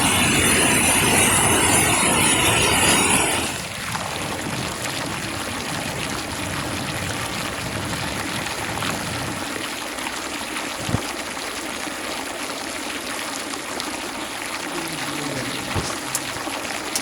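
Steady rushing of water, loud for the first three and a half seconds, then dropping suddenly to a quieter, even hiss with a faint knock or two.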